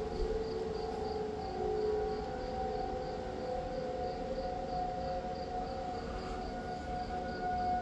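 Distant outdoor storm warning siren sounding a steady tone that shifts slightly in pitch, with a higher tone joining about six seconds in.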